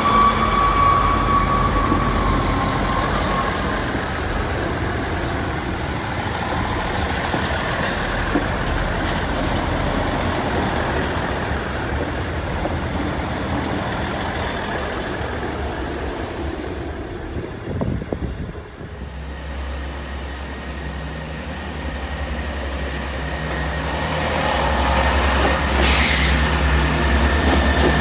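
A South Western Railway diesel multiple unit running past and away, its wheels and underfloor engines rumbling steadily before fading out about two-thirds of the way through. After that a low, steady diesel hum from a train standing close by builds towards the end, with a short air hiss a couple of seconds before the end.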